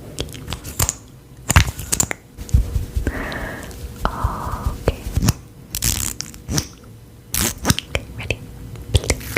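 Irregular sharp cracks and crunches close to the microphone, with a couple of brief rustling hisses about three to four seconds in.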